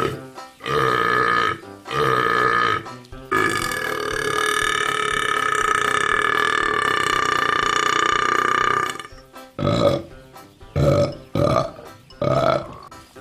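Burps, in the form a compilation of frogs drinking cola is built on: two short burps, then one long drawn-out burp of about six seconds, then a quick run of short burps near the end.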